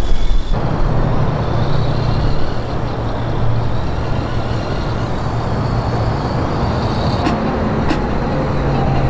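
Simulated truck engine sound played through a speaker mounted on an RC truck: a steady low drone that starts about half a second in. A few sharp clicks come near the end.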